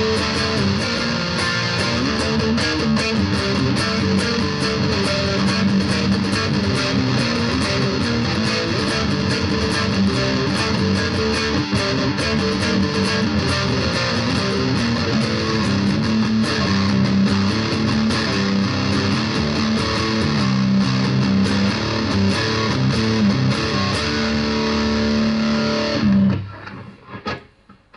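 BC Rich Virgin VG1 electric guitar played through a Roland Cube Lite practice amp's distortion, with its bridge and neck pickups combined and the tone knob fully open. A continuous distorted riff; near the end the playing stops and the sound dies away.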